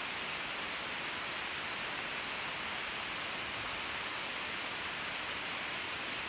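Steady, even hiss with no distinct strokes or changes: the background noise of the recording.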